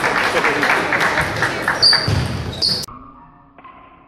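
Table tennis balls ticking rapidly on tables and bats amid the general noise of a busy sports hall, with a couple of short high squeaks. The sound cuts off sharply about three seconds in, leaving only a faint dull hum.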